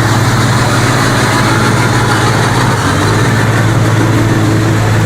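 A heavy vehicle's engine running steadily at an even speed, with a constant low hum.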